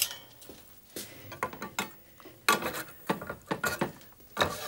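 Serving spoon and fork clinking and scraping against a roasting pan and plates: a string of irregular sharp clinks, the loudest about two and a half seconds in.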